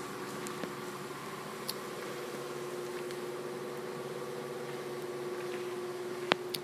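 A steady mechanical hum holding a few fixed tones, with a sharp click near the end.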